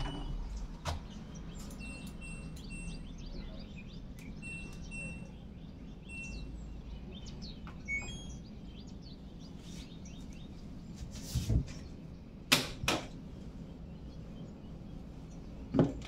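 Front-load washing machine door pushed shut with a latch click about a second in, then several loud sharp clicks later on, against a low steady hum. Birds chirp intermittently, mostly in the first half.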